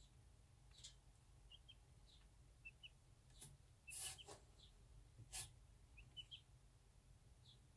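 Chicks peeping faintly from under a brooding bantam hen: short high peeps, often in quick pairs, scattered through. A few brief scratchy rustles, the loudest about four seconds in.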